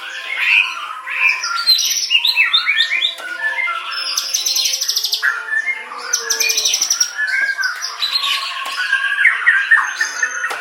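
White-rumped shama (murai batu) singing a varied song of whistled phrases and quick up-and-down notes, broken twice, about four and six seconds in, by fast buzzy chattering rattles.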